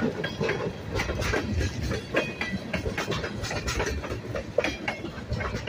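Diesel-hauled freight train passing close by: a low rumble with steel wheels clacking and knocking over the rail joints as the locomotives and tank cars go by.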